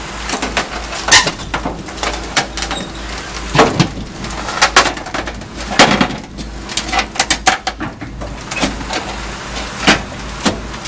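Doosan DX225LCA hydraulic excavator running with a steady engine hum, under a string of irregular sharp knocks and clanks, the loudest about a second in and around six seconds.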